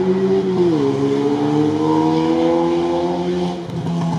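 Off-road 4x4 engine running hard under load; its note drops about a second in, then holds steady before easing off near the end.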